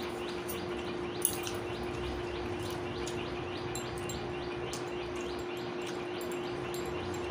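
A bird chirping over and over in short falling notes, about three or four a second, over a steady low hum, with one brief click a little over a second in.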